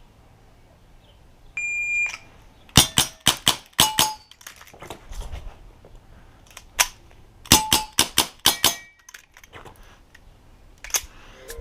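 A shot-timer start beep, then a Dan Wesson 715 CO2 airsoft revolver firing two quick strings of about six shots each, with a pause of a few seconds between them. Steel targets ring briefly after some hits.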